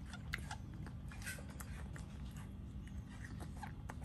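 Baby monkey chewing on a piece of fruit: small wet smacking clicks scattered irregularly, over a steady low hum.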